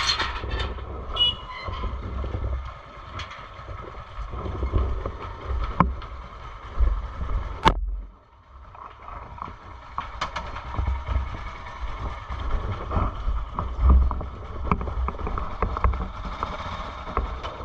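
Wind buffeting the microphone: a gusty low rumble, broken by a few sharp clicks and a short lull about eight seconds in.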